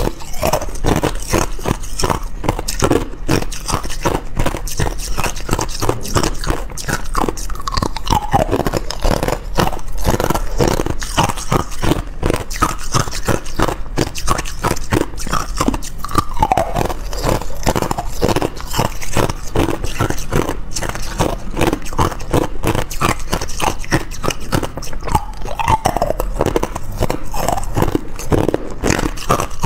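Clear ice cubes being bitten and crunched between the teeth right at the microphone: a rapid, unbroken run of cracks and crunches as the ice is chewed.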